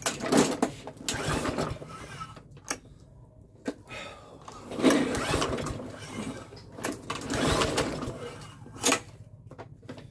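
Webb petrol lawnmower's 132cc DVO130 engine going in several rough bursts, each about a second long, over a steady low hum. The owner puts its poor running down to a choke that is not moving enough.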